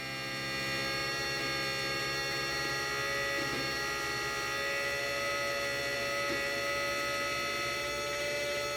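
3D-printed axial-flux brushless DC motor running on its Arduino-driven controller, giving a steady electrical hum and whine made of many held tones. It gets a little louder about a second in, then holds steady.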